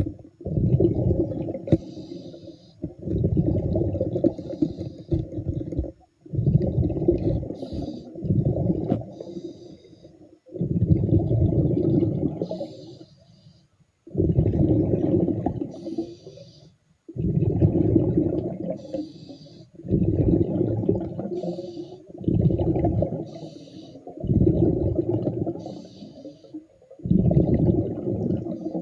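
A diver breathing underwater through a diving regulator: a low rumbling burst of exhaled bubbles every two to three seconds, with a short hiss of inhalation between each.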